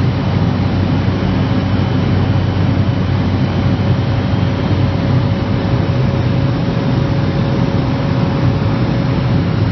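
Steady cabin drone of a Cessna 208B Caravan's PT6A turboprop engine and propeller, running evenly, with a thin steady whine above the deep rumble.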